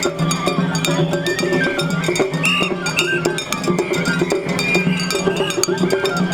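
Festival music: a stepping melody over a held low note, with fast, busy clicking percussion throughout.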